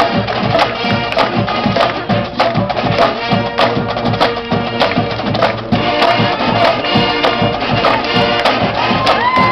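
Marching band playing live: brass and drums together, with a steady beat of drum strokes.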